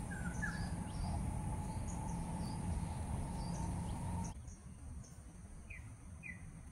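Outdoor ambience of a steady high insect drone, with short chirping calls scattered throughout and a low rumble underneath. About four seconds in, the background drops abruptly quieter, and a couple of chirps follow near the end.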